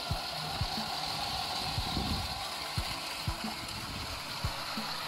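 LEGO Express Passenger Train (set 60337) running on plastic track: its motor and wheels give a steady whirring hiss, with soft irregular clicks as the wheels cross the track joints.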